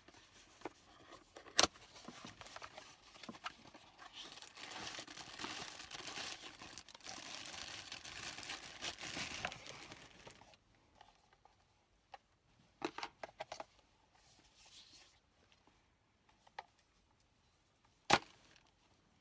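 Handling noises: several seconds of rustling and scraping, with a few sharp clicks before and after and a quick run of clicks in the quieter second half.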